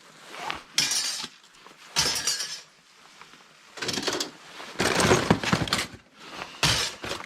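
Scrap laptop parts clattering as they are handled and dropped while being sorted: about five separate rattling clatters, the longest and loudest about five seconds in.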